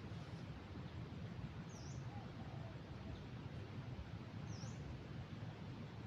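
A bird calls twice, about three seconds apart: each is a short, high chirp that dips and rises again. Behind it is a steady outdoor noise haze.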